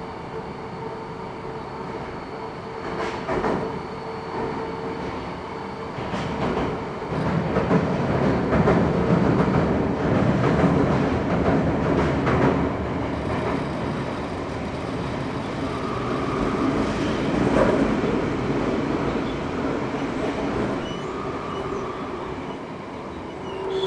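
Running noise of an Eidan N05-series subway train heard from inside the car: a steady rumble that grows louder through the middle, with a few sharp clicks from the wheels on the rails.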